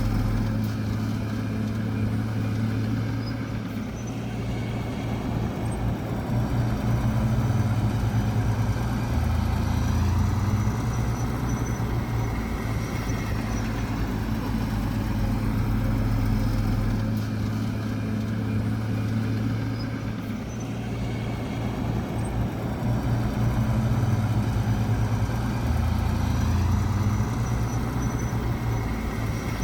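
Heavy diesel engine of earthmoving machinery running steadily, its pitch and loudness rising and easing every several seconds as the load changes.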